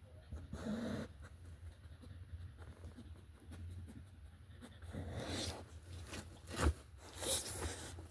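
A dog making short noises: a brief low vocal sound about half a second in, then breathy huffs later on, with a sharp click between them.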